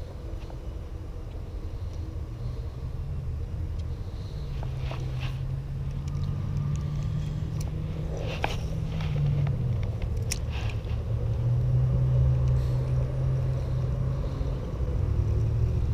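Low, steady rumble of a motor vehicle engine running nearby, its pitch drifting slightly and slowly growing louder. A few light clicks of a fishing rod and reel being handled sound over it, about five, eight and ten seconds in.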